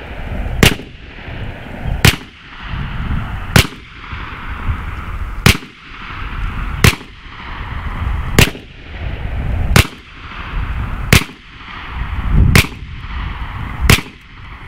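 BinTac T9 9mm airgun, tethered to an air tank, firing ten sharp shots at a steady pace of about one every one and a half seconds. It is cycling sabot rounds from an extended stick magazine without a stoppage. A rushing noise swells between shots.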